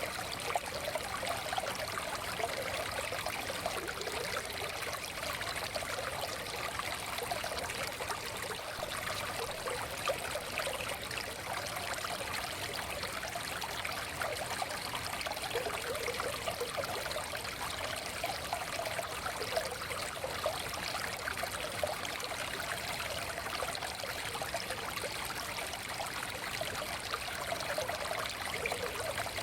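Small forest stream flowing steadily, with a continuous bubbling trickle of water over stones.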